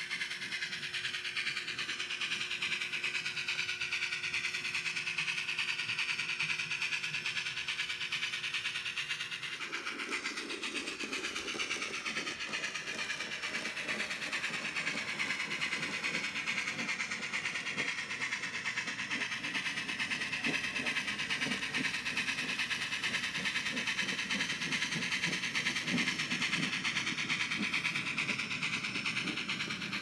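Bachmann Spectrum 4-8-2 Mountain model steam locomotive's onboard sound playing simulated steam running sounds while the train moves. A few steady tones give way, about ten seconds in, to a busier, rougher chuffing sound that carries on.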